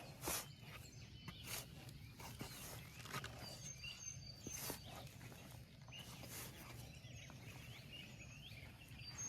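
Faint scrapes and rustles of garden soil being dug by hand, a few separate strokes a second or more apart, with small birds chirping briefly in the background.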